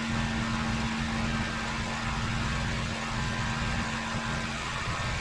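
A 2800 psi pressure washer running steadily, with a held hum and the hiss of spraying water from the surface cleaner working on concrete. The hum tone fades near the end.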